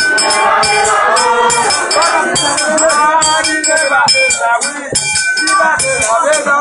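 Vodou ceremonial song: voices singing together over a shaken rattle and sharp percussive clicks, with a high ringing tone.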